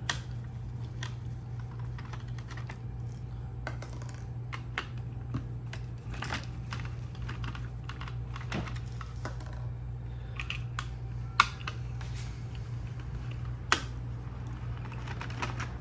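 Irregular small clicks and taps of a hand screwdriver and plastic parts as screws are backed out of a Mint robot's pad mount, with one sharper click about 11 s in, over a steady low hum.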